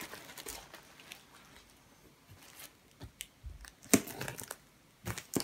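Hands working at a tape-sealed cardboard box: a few sharp taps and scratchy noises on the cardboard and packing tape in the second half, the loudest about four seconds in.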